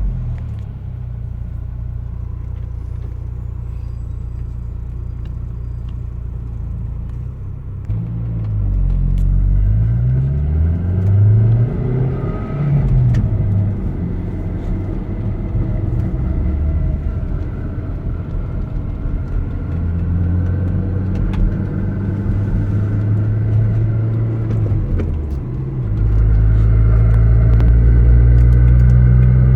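Audi B5 A4's 1.8-litre turbocharged four-cylinder running through a loud exhaust while driving, the clutch pedal pressed and released, with a chattering rattle that is gear chatter from the lightened flywheel, not a bad pilot bearing. The engine pitch rises and falls several times about a third of the way in and runs louder near the end.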